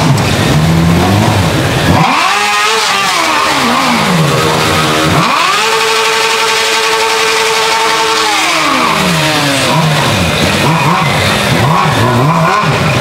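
Several sport motorcycles riding slowly in a group, engines running. One is revved hard: a sharp rise about two seconds in, then revs climb again about five seconds in, are held high for about three seconds and fall back.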